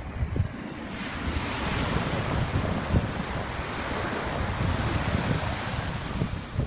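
Ocean surf washing onto a sandy beach, a steady hiss that swells about a second in, with wind rumbling on the microphone.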